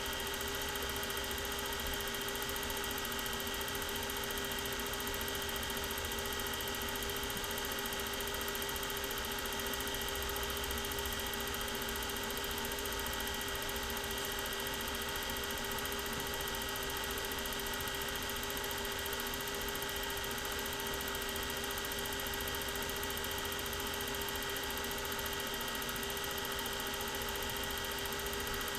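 Steady electrical hum with an even hiss and a few fixed high tones that never change, with no sound from the filmed scene.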